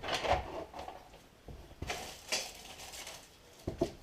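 Intermittent light clicks and brief scraping and rustling sounds of handling, with quiet gaps between them.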